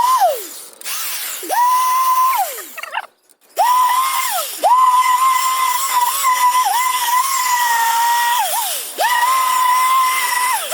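Power drill run in about four bursts. Its motor whine spins up to a steady pitch, holds for one to four seconds, then drops away each time the trigger is released.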